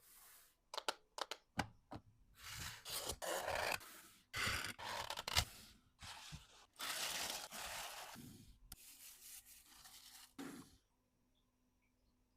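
Hands handling packaging materials: a few light clicks, then bursts of rustling and scraping, which stop about eleven seconds in.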